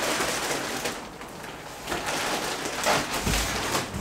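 Plastic wrap crinkling and a cardboard box scraping and knocking as a rolled, plastic-wrapped foam mattress is pulled and tipped out of its tall box, with a dull thump a little after three seconds in.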